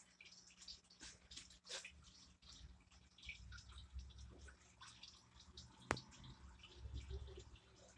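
Faint trickling and dripping of aquarium water with many small ticks, over a steady low hum. A single sharp click about six seconds in.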